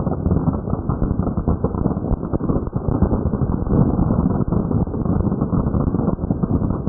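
Several fireworks going off together in a dense, continuous crackle of rapid pops.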